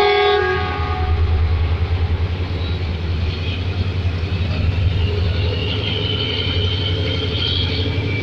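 A diesel locomotive's multi-tone horn cuts off about half a second in, then the engine runs with a deep, pulsing rumble as the train moves. A faint high squeal comes in from about five to eight seconds in.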